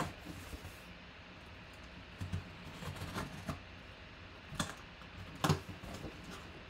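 Cardboard box being handled and opened by hand: scattered knocks, taps and scrapes of cardboard, the loudest two about four and a half and five and a half seconds in.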